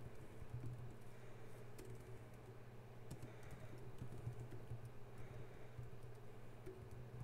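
Typing on a computer keyboard: quiet, irregular key clicks over a steady low hum.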